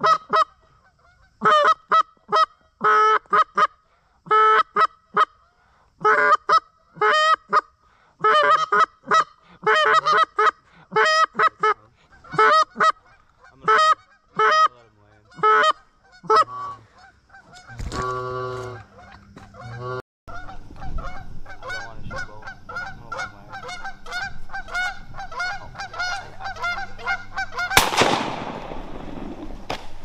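Goose honks and clucks in quick rhythmic runs, several a second, giving way after about 18 s to denser, overlapping honking. About 28 s in, a single shotgun blast cracks out.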